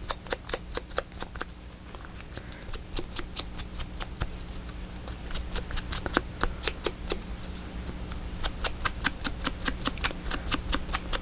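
A paper envelope edge being distressed with a hand tool: short, sharp scraping strokes, several a second, in runs with brief pauses.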